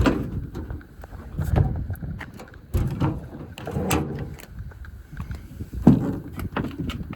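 Metal drawers of an American Eagle tool chest being slid open and shut several times, each a rolling rumble on the runners ending in a clunk; the loudest clunk comes about six seconds in.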